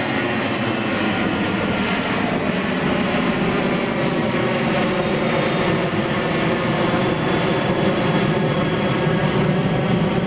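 Twin-engine jet airliner climbing out after take-off, its engines making a steady roar with several held whining tones in it, growing slightly louder later on.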